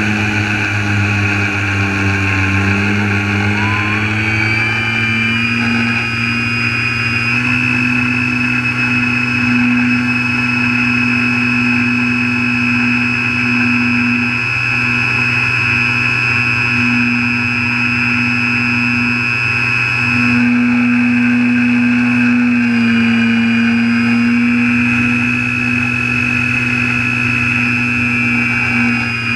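RC aircraft's motors and propellers heard from its onboard camera: a steady whine whose pitch steps up a few seconds in, then shifts slightly with the throttle.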